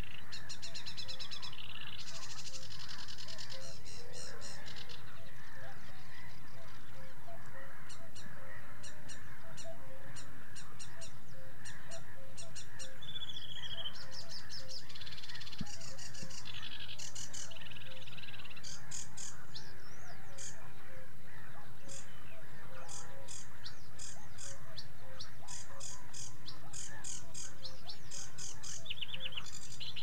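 Sedge warbler singing: long runs of fast chattering trills and rapidly repeated high notes, broken by brief pauses.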